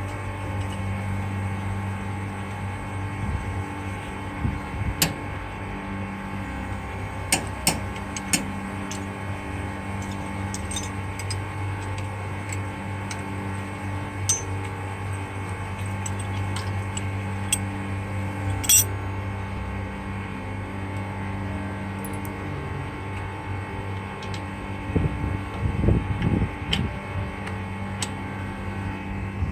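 Steady low machine hum running throughout, with scattered light clicks and clinks, and a few low thumps near the end.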